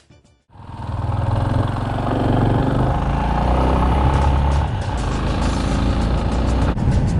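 Yamaha Serow motorcycle's single-cylinder engine running while riding, with a steady rushing noise over it; it starts abruptly about half a second in.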